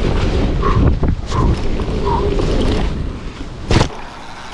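Wind buffeting the microphone and tyres rumbling on dirt as a 16-inch mini mountain bike runs fast downhill, with a single sharp knock near the end.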